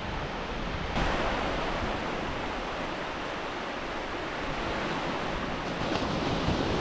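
Ocean surf washing onto a sandy beach, a steady rush of noise that swells about a second in and then eases slowly.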